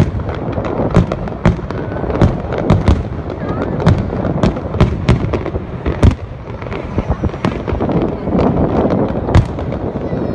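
Aerial fireworks display: a rapid, irregular string of sharp bangs and crackles, several a second, over a constant din.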